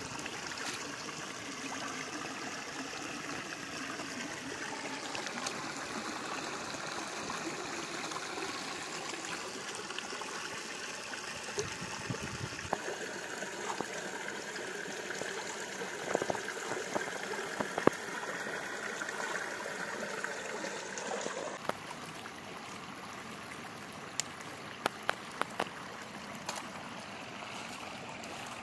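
Shallow stream running steadily over rock, with scattered sharp clicks and knocks around the middle and again near the end. The water is a little quieter after about three-quarters of the way through.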